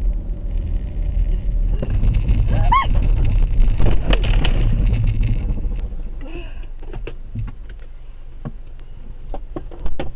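Car driving, a steady low engine and road rumble, with a louder stretch and a short rising squeal about three seconds in, then scattered sharp clicks and a knock near the end.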